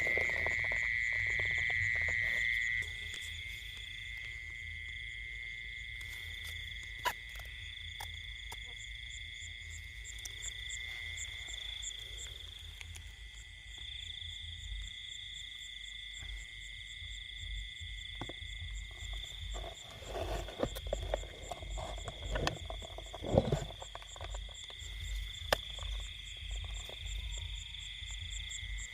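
Night chorus of crickets and other insects in a rice field: steady high-pitched trilling in several layers, with one louder trill that stops about three seconds in. Low rumbles and a few sharp clicks, most of them in the second half, come in over the chorus.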